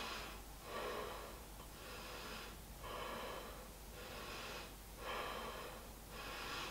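A person breathing audibly in and out through the nose and mouth, soft swells of breath about one a second, while holding a strenuous yoga pose.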